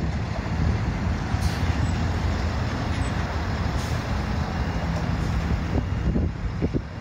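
Outdoor road traffic noise mixed with wind buffeting the microphone: a steady, dense rumble.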